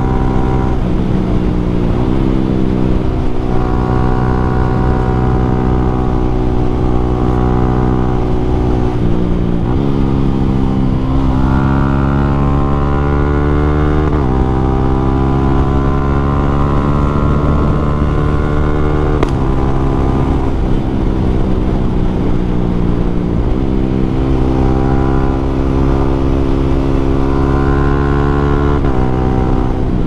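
Yamaha Sniper 155R's 155 cc single-cylinder engine running through an Akrapovic M1 exhaust while being ridden. The engine note holds fairly steady for a few seconds at a time and then steps suddenly in pitch, as happens with gear changes.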